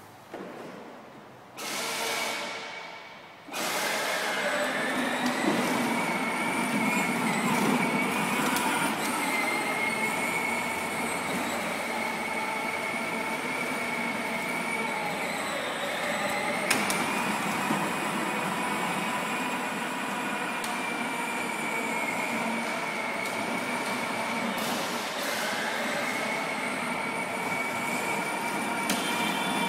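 Electric drive motor and gearbox of a 12-volt John Deere Gator HPX children's ride-on toy, whining as it drives. A short burst comes about two seconds in, then a brief pause, then a steady whine that carries on, its pitch dipping briefly a couple of times.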